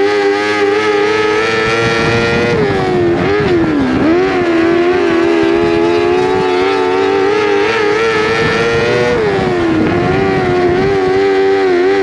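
A 600cc micro sprint's motorcycle engine heard up close from the car itself, running hard at high revs, with its pitch dipping as it lifts for a turn about three seconds in and again about nine seconds in, then climbing back up under throttle.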